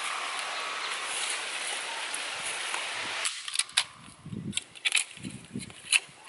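Steady hiss of sizzling and steaming from the smoking campfire, which cuts off suddenly a little over three seconds in. Then come sharp snaps and crackles of dry twigs and grass stems being broken by hand, with soft low thuds between them.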